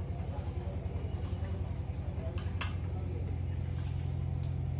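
A steady low hum, with one short, light click a little past the middle.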